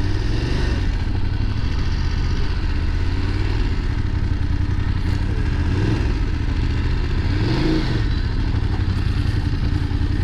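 Adventure motorcycle engine running while being ridden, its pitch rising and falling briefly near the start and again near the end.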